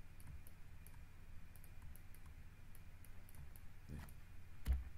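Faint, scattered clicks of a computer mouse over a low hum, with one louder knock near the end.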